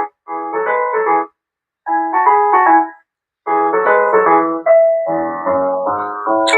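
Background music: a keyboard melody of short, even notes, breaking off into silence twice for about half a second each.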